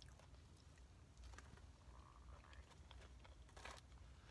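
Faint, quiet chewing of breaded chicken bites, with a few soft mouth clicks and crunches.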